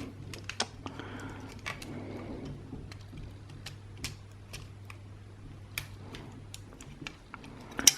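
Irregular small clicks and taps as the plastic parts of an Xbox One controller are handled and worked apart. A faint steady low hum underneath stops near the end.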